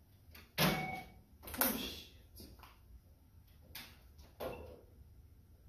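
A few knocks and bumps of things being handled in a small room: two louder ones about half a second and a second and a half in, then two softer ones near the end.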